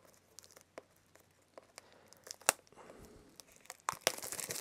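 A metal Blu-ray steelbook being handled and turned over in the hands: scattered light clicks and taps, then a denser rustle near the end.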